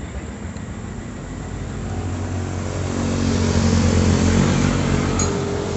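A motor vehicle passing on the road: its engine grows louder from about two seconds in, peaks, then fades near the end.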